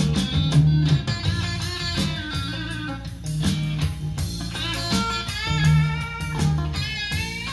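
Blues-rock music led by electric guitar, with bass, playing from a vinyl record over large three-way hi-fi floor speakers (Onkyo SC-1500) and picked up in the room. The guitar's notes bend and waver above a steady bass line.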